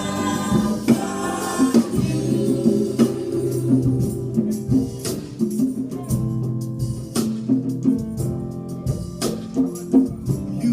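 Live worship band music with no singing: drums and tambourine keeping a steady beat over held low bass notes.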